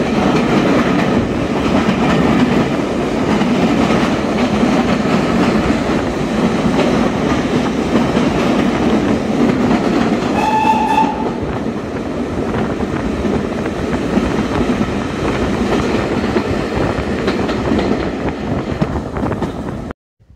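Heritage steam train running through a tunnel, heard from inside a carriage at an open window: a loud, steady rumble of wheels on rails. About halfway through, the locomotive gives one short whistle.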